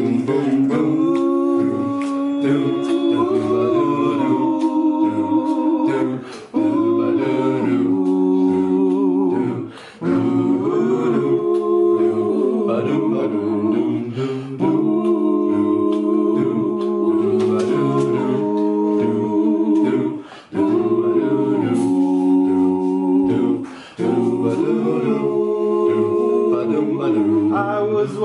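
A small men's chorus singing a cappella in close harmony: sustained chords in phrases of a few seconds, with brief breaks for breath between them.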